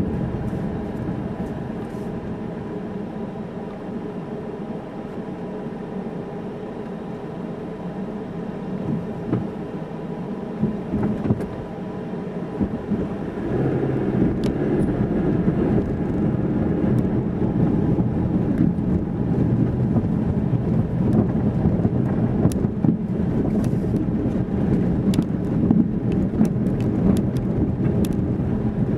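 A car's engine and road noise heard from inside the cabin as it drives. It runs steadily and grows louder about halfway through, with scattered light clicks near the end.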